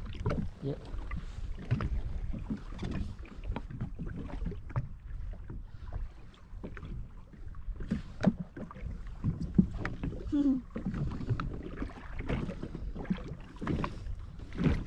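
Water slapping and lapping against the hull of a drifting jet ski, with irregular knocks and low rumbling noise throughout.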